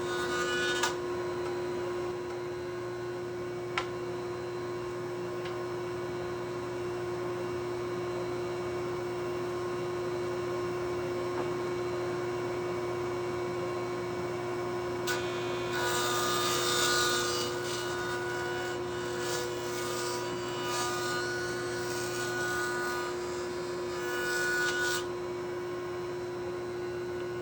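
Jointer running with a steady motor hum. Two sharp clicks come in the first few seconds. From about halfway through, a board is fed across the cutterhead, a louder, noisier cutting sound that lasts around ten seconds.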